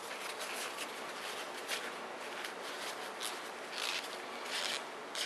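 Paper towel rubbing and rustling against the small steel check-valve plunger of an oil pump as it is wiped out, in a series of short scratchy strokes.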